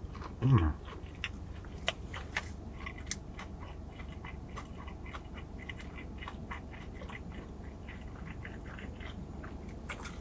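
A person chewing a mouthful of fried chicken sandwich with the mouth closed: a run of small, soft, irregular clicks and crunches. A short falling "mm" hum comes about half a second in.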